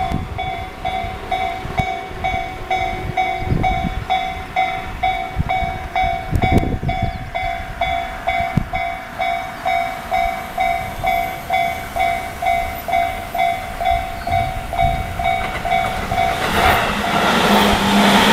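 Japanese railway level-crossing warning bell ringing steadily about twice a second. Near the end it is swamped by the loud rising noise of a Tobu 20400 series electric train running past.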